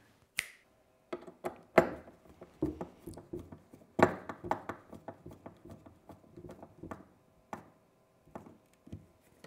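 Hand screwdriver turning screws through a metal hinge into a wooden frame: irregular small clicks, scrapes and knocks of the driver, screws and hinge, a few of them sharper. A single sharp click comes just after the start.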